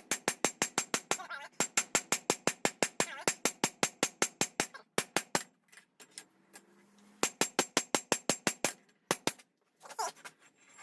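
Rapid hammer blows on a hot steel knife preform over the anvil, about six a second in quick runs, with a bright ring from the anvil, as the blade is drawn out and thinned. The hammering breaks off about halfway with a few scattered strikes, then starts again in another run.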